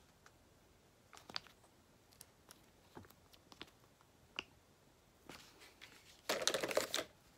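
Puffy sticker sheets being handled and flexed: scattered light crackles and clicks, then a burst of crinkling, the loudest sound, about six seconds in as the sheets are put down.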